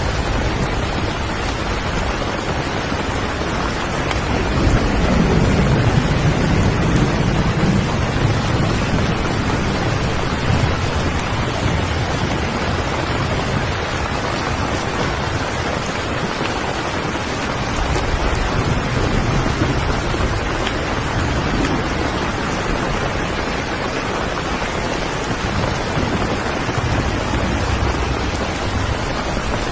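Steady heavy rain, with a low rumble of thunder swelling about four seconds in and fading out by about eleven seconds.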